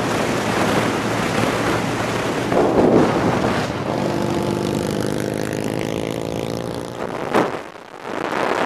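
Motorcycle engines running at road speed with wind rushing over the microphone. A steady engine note comes through in the second half, then there is a sharp thump near the end.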